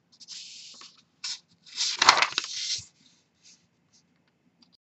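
Paper sheet sliding and rustling against a desk as it is pushed along, in a few scrapes, the longest and loudest about two seconds in.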